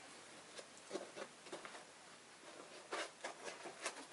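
Faint, scattered light taps and rustles of a DJI Mavic Pro drone being pressed by hand into a padded bag compartment, with a cluster of small knocks about three seconds in.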